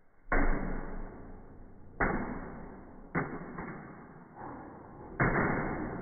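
A toy car tumbling down wooden stairs, knocking against the treads five times at uneven intervals, the first and last hits the loudest. Each knock fades out slowly over about a second, as in audio slowed down to slow motion.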